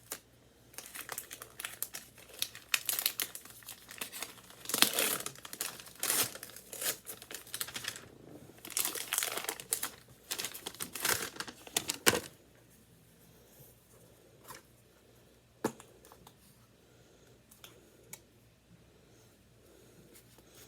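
Gift packaging being crinkled and torn open by hand, in irregular bursts for about twelve seconds, then just a few light clicks of handling.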